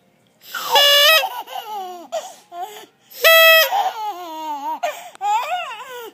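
A short, loud honk sounds twice, about a second in and again about three seconds in. Each honk is followed by a baby's high-pitched squealing laughter.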